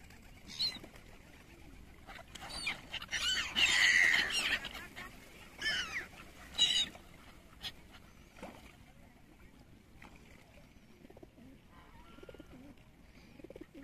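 A flock of gulls calling over open water: repeated cries, thickest about three to four seconds in, then thinning to occasional calls. Fainter, lower calls come through near the end.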